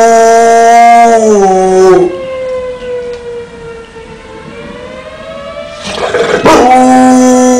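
Dogue de Bordeaux howling along to a tornado siren. A long, loud held howl slides down in pitch and breaks off about two seconds in, leaving a fainter wavering wail underneath. After a short breathy rush near the end, the dog takes up a new howl.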